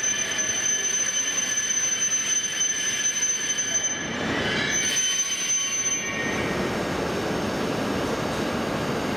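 E5 series Shinkansen train slowing to a stop alongside the platform, with a high steady whine and squeal over lower tones. The whine breaks off briefly about four seconds in and stops about six seconds in as the train halts, leaving a steady rushing noise.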